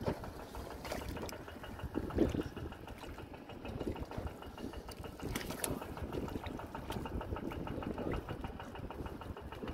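Small engine-driven water pump running steadily while it pumps out the canal. There is a brief thump about two seconds in.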